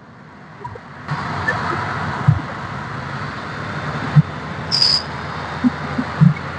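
Steady road noise of a moving vehicle, with a few low knocks and a brief high squeak a little before the end.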